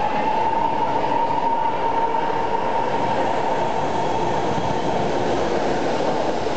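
10-car BART train pulling in along an underground station platform, a steady rumble of wheels on rail. A high whine rises slightly, holds, and fades out about three seconds in.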